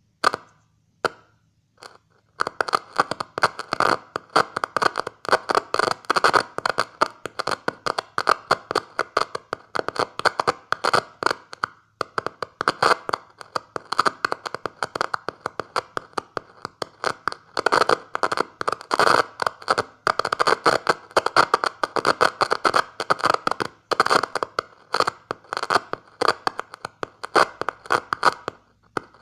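Radio static from a home-built receiver: dense, irregular crackling and clicking. A few isolated clicks come first, then the crackle runs almost without pause, with short breaks about 12 and 24 seconds in.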